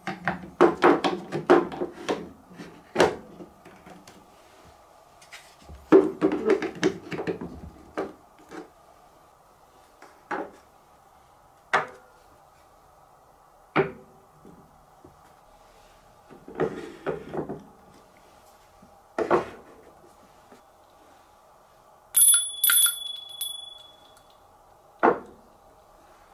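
Wooden marble-run track pieces handled and set onto their supports: clusters of hard wooden clacks and knocks, then single knocks every few seconds. About 22 s in comes a brief high metallic ring, like a small bell.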